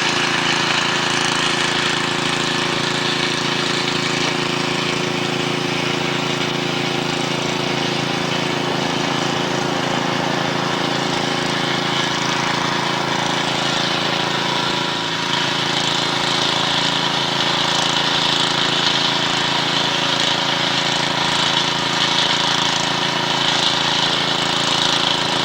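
A machine engine running steadily under load, with a dense mechanical clatter and hiss over it, and a brief dip about halfway through.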